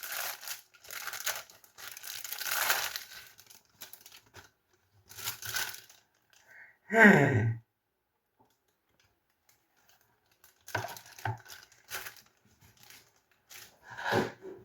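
Plastic packaging crinkling and tearing in several short bursts, as a newly unboxed drive is pulled out of its wrapping. Scattered lighter rustles and clicks come later.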